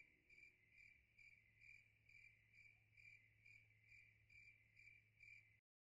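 Near silence with a faint, regular high chirp about twice a second, like a cricket, cutting off abruptly near the end.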